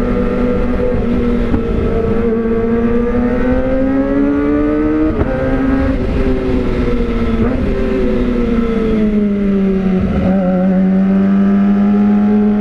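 Kawasaki ZX-25R inline-four engine running through an Austin Racing aftermarket silencer while riding, fairly loud. The engine pitch climbs slowly, drops with a gear change about five seconds in, then eases lower and holds steady near the end.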